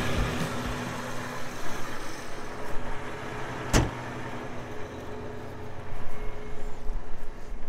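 John Deere tractor engine idling steadily, with wind buffeting the microphone in gusts that grow stronger near the end. A single sharp click a little under four seconds in.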